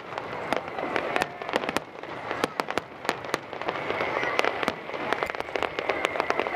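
Aerial fireworks bursting: a quick, irregular run of sharp bangs and crackles, several a second, over a steady murmur of crowd noise.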